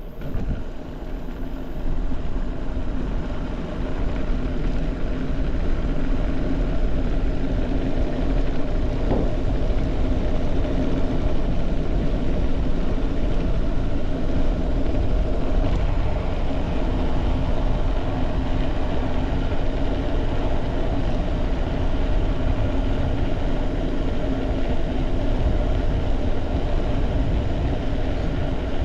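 Steady wind rush on the microphone and the rolling hum of mountain-bike tyres on a road while riding, with a steady low drone.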